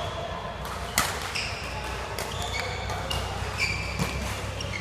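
Badminton rally: sharp racket hits on the shuttlecock, a loud one about a second in and another about four seconds in, with short high squeaks of court shoes on the mat between them.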